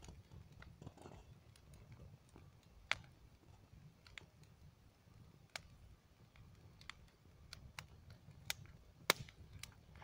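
Bonfire of dry twigs and brush crackling: irregular sharp pops and snaps, one of the loudest near the end, over a low steady rumble.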